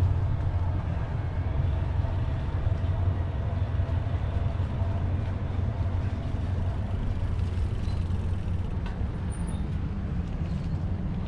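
Steady low rumble of wind buffeting the microphone and tyre noise while riding an e-bike, with a faint thin hum that fades out about halfway.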